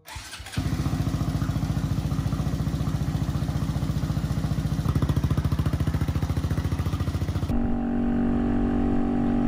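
Honda Monkey's single-cylinder 125 cc engine, fitted with a TB Cam camshaft and a reflashed ECU, starts up about half a second in and then idles with an even pulse. Near the end the sound cuts to the same engine running steadily while the bike is ridden on the road.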